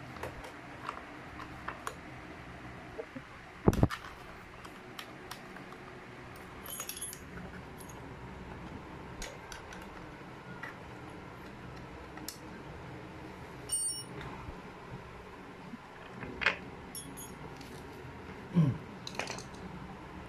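Scattered metallic clicks, clinks and knocks of hand tools, bolts and parts being handled on a scooter engine during reassembly. The loudest knocks come about four seconds in and again near the end.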